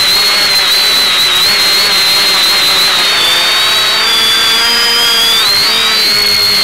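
Electric motors and propellers of an X550 quadcopter whining steadily in flight, several high tones drifting apart and back together as the individual motors change speed during a turn.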